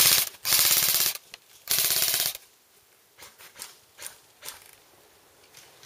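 Airsoft guns firing three bursts of rapid full-auto fire in the first two and a half seconds, then only a few faint clicks.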